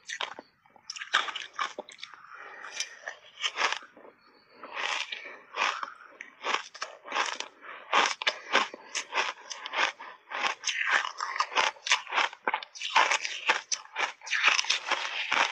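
Crunchy shaved ice being bitten and chewed close to the microphone: a dense, irregular run of crisp crunches in big mouthfuls, with a couple of short pauses.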